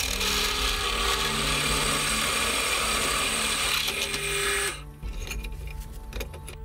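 Drill press bit cutting through a steel knife blank: a loud, gritty grinding of the bit biting into the metal. It stops suddenly about five seconds in, followed by a few light clicks.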